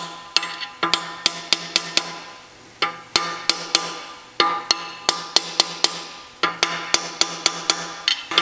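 Ball-peen hammer striking a steel punch to drive a shaft bearing into its housing on a Porsche 902 transmission. The quick, sharp metallic taps come about three a second in five short bursts, and each tap rings briefly.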